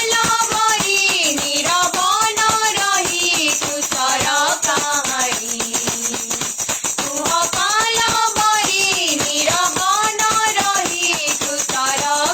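Instrumental worship music: a pitched lead melody rising and falling in smooth phrases over a fast, steady shaker-like percussion rhythm.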